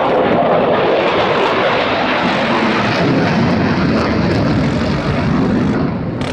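Loud aircraft engine roar, steady, its pitch sinking slowly as it goes.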